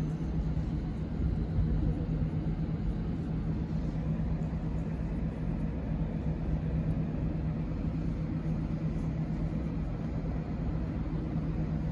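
Steady low rumble with a constant low-pitched hum running through it.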